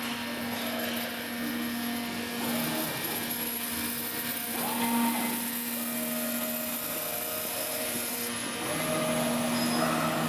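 CNC oscillating knife cutting machine running as its cutting head travels across the conveyor table: a steady motor hum with a constant low tone, a brief higher whine about halfway through and a wavering high whine near the end.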